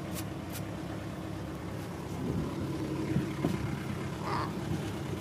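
A steady low engine hum, with two short sharp knocks in the first second.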